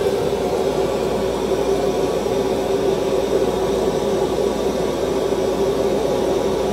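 A foundry furnace running with a steady roar and a constant hum.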